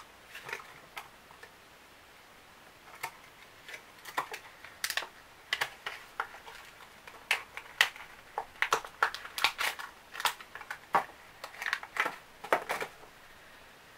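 Packaging of a nail treatment being handled and opened: an irregular run of sharp crackles and taps, which starts about three seconds in and comes thickest in the second half.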